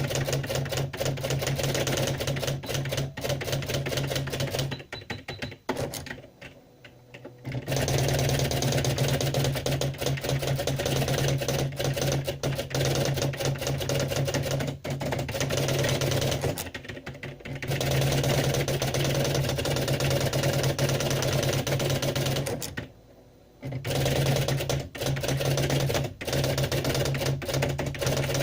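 Typewriter being typed on: a rapid run of keystroke clacks over a steady low hum, stopping briefly a few times.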